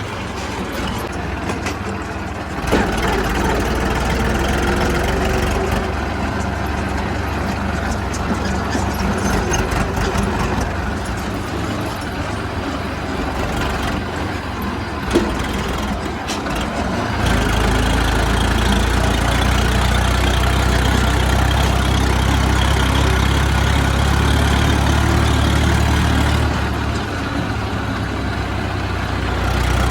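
Heavy diesel machinery engine running steadily. It grows louder and deeper about 17 seconds in, and there are a couple of brief sharp knocks.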